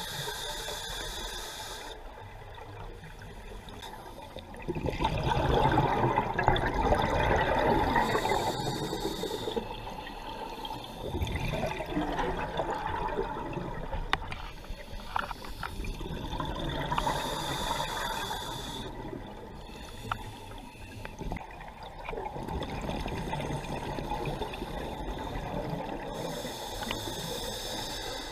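Scuba regulator breathing underwater: a hiss of air through the demand valve on each inhale, then a louder gurgling rush of exhaled bubbles, repeating about three times. The first exhale, about five seconds in, is the loudest.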